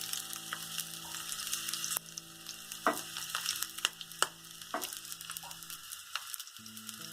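Coconut oil with crushed garlic sizzling and crackling in a small pan as it heats on the stove, with scattered sharp pops. The garlic is frying in the hot oil until it changes colour.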